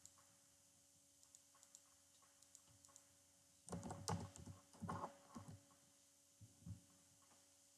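Faint computer keyboard typing: a few scattered light clicks, then a louder cluster of keystrokes about four seconds in, and two more near the end.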